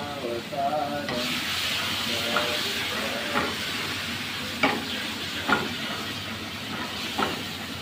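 Tomato sauce with garlic sizzling in olive oil in a pan on a gas flame while a steel ladle stirs it. The sizzle swells about a second in, and there are several sharp clinks of the ladle against the pan.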